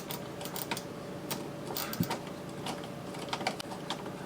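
Hand-driven screw going back into a refrigerator door hinge: scattered small metallic clicks and ticks as the screwdriver turns and the bracket shifts, over a faint steady hum.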